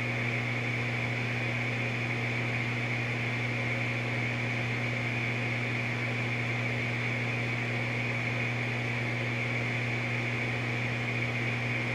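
Gas furnace draft inducer motor running with a steady hum and airy whir, while the burner fails to light: the furnace gets a call for heat but no ignition follows.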